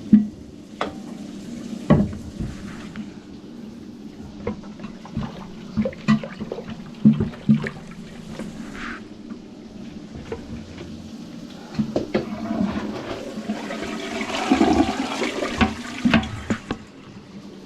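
Toilet flushing, with water rushing for several seconds in the second half. Before it, scattered knocks and clicks over a steady low hum.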